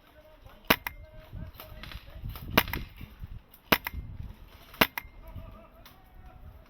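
Kythera G.3 airsoft DMR rifle firing four single sharp shots, spaced about one to two seconds apart.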